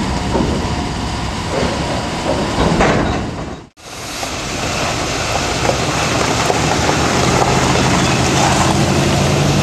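Rail-yard noise of railroad switching, with a locomotive engine running as a steady low hum that grows plainer in the second half. The sound cuts out briefly about four seconds in.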